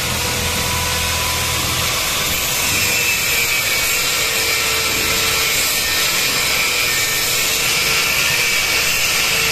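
Handheld angle grinder running steadily under load with a constant whine, its disc grinding the metal of a bicycle frame and throwing sparks, smoothing the frame after welding.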